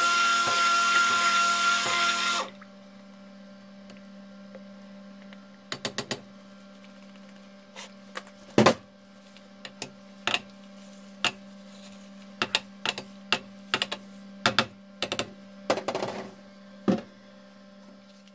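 Stick blender running in thick coconut and castor oil soap batter, then switched off about two and a half seconds in. After that a steady low hum remains, with scattered clicks and knocks as the blender is handled against the crock.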